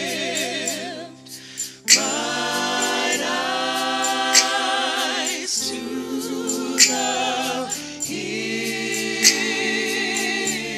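Gospel praise and worship team singing in harmony, with long held notes and vibrato, backed by keyboard and drums; a drum accent lands about every two and a half seconds, and the sound drops briefly about a second in.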